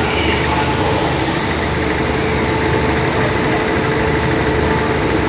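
Diesel railcar's underfloor engines idling steadily at a standstill, a constant low hum with a steady mid-pitched drone.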